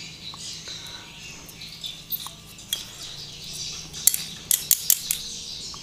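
Small metal clicks and clinks of circlip pliers fitting a retaining ring onto a scooter gearbox shaft, with a cluster of sharp clicks about four seconds in.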